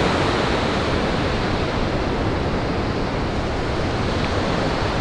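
Ocean surf breaking on a sandy beach, heard as a steady, even wash of noise.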